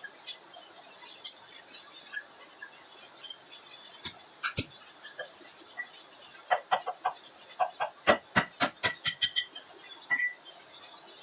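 A chicken clucking in a quick run of short, repeated clucks through the second half, with a couple of sharp knocks a little before.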